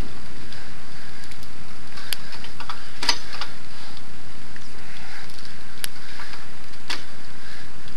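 Handbike rolling along asphalt, heard from a microphone mounted on the bike: a steady rushing noise with a few sharp clicks and knocks from the bike, the sharpest about three seconds in.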